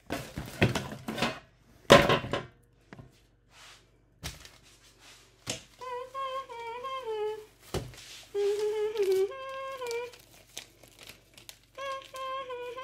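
Loud rustling and handling noise at first. Then a woman hums a wordless tune in held notes, over the crinkle of a plastic food bag and a few knocks on a countertop.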